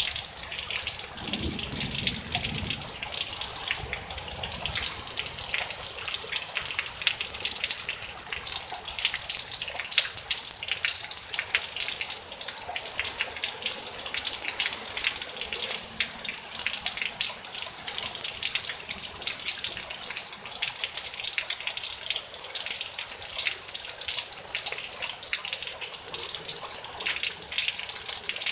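Steady rain falling, a dense, even hiss of drops that never lets up.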